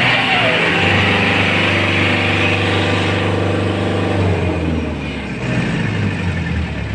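Kubota compact tractor's diesel engine running steadily under load while driving a rotary tiller through wet soil. Its note dips and wavers about four and a half seconds in, then settles again.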